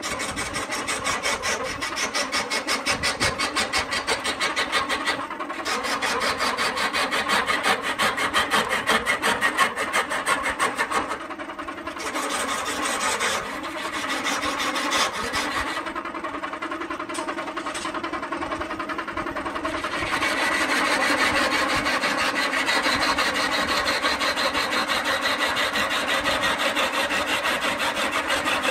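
A turning tool cutting into a coconut palm log spinning on a wood lathe: a continuous scraping with a fast, even chatter over a steady hum. The cut eases off briefly a couple of times around the middle and is louder in the last third.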